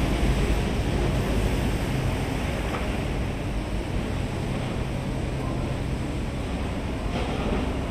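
Steady rushing outdoor ambience with a low hum underneath that fades out about two-thirds of the way through.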